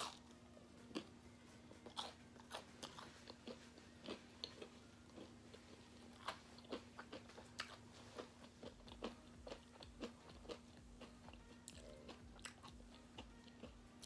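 A person chewing and crunching food close to the microphone: quiet, irregular small crunches and mouth clicks, about one or two a second.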